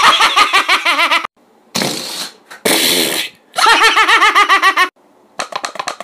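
A man laughing loudly and theatrically in two long bouts of rapid pulsing laughs, with raspy, breathy gasps between them. A quick run of short sharp clicks comes near the end.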